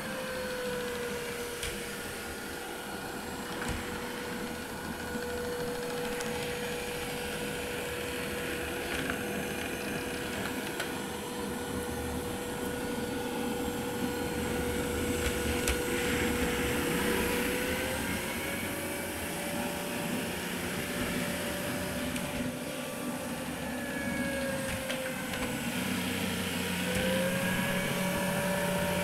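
Vorwerk Kobold VK7 cordless vacuum cleaner running, with a steady motor whine over the rush of air. The whine steps up in pitch about two-thirds of the way through, dips briefly near the end and comes back up.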